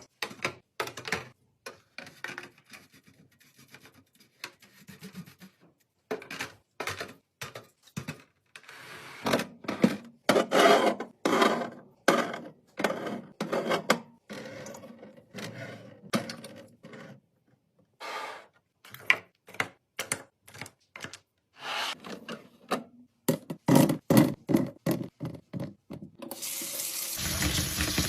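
Fridge restocking: containers, jars and packaging are set down and slid into place, making scattered clacks, knocks and rubbing. A steady rushing noise starts near the end and lasts about a second.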